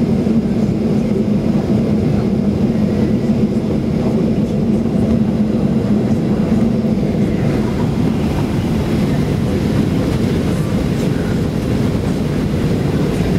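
Steady cabin noise of a Boeing 737-800 taxiing, heard from inside the cabin: a low hum from its CFM56-7 engines at taxi power over the rumble of the wheels on the taxiway.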